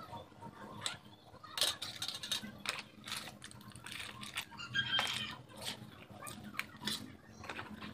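Scattered light clicks and rustles of hands handling a smartphone and the plastic-wrapped accessories and packaging in its box.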